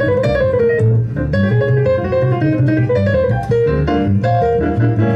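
Instrumental music with guitar and piano over a steady bass line.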